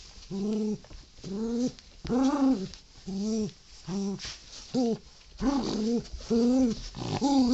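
Miniature schnauzer growling in a string of short, pitched bursts, about ten of them, each a rising-and-falling rumble, while tugging on a toy. It is play growling during a game of tug-of-war.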